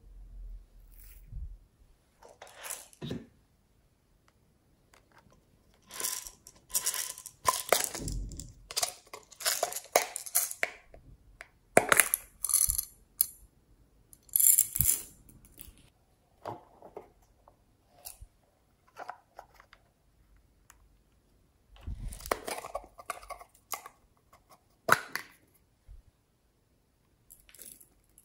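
Small plastic containers of glitter and plastic pearl beads being handled and their contents tipped onto a tray of slime: scattered clicks, rattles and patters, busiest from about six to fifteen seconds in and again around twenty-two to twenty-five seconds in.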